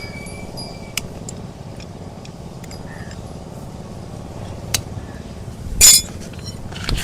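Metal hoof-trimming tools clicking and clinking against the donkey's hoof, with a louder sharp clack about six seconds in, over a steady low rumble.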